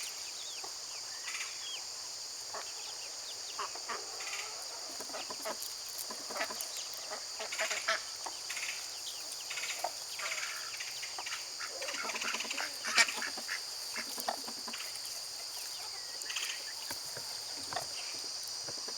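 Farm poultry calling in short scattered bursts, busiest around the middle, over a steady high-pitched insect chorus.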